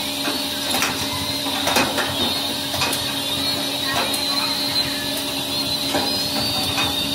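Truck-repair workshop noise: a steady mechanical hum with light metallic clicks and knocks about once a second.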